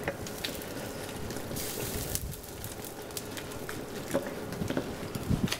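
Spaghetti bubbling and sizzling in a stainless sauté pan with a little pasta cooking water over high heat, with scattered clicks of a wooden spoon stirring against the pan. A brief louder hiss comes about two seconds in.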